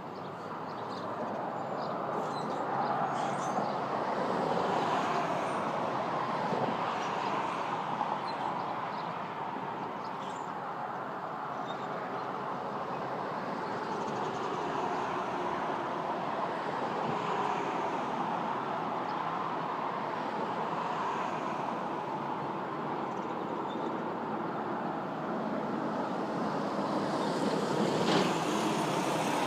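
Steady rushing background noise that swells and eases slowly over several seconds, with a few faint short high chirps above it.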